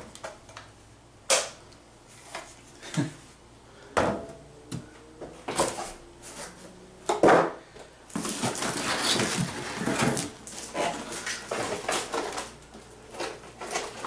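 Cardboard box and plastic packaging being handled: a few sharp knocks and clicks as hard plastic parts are set down in the box, then from about halfway a long stretch of crinkling plastic bags and rustling cardboard.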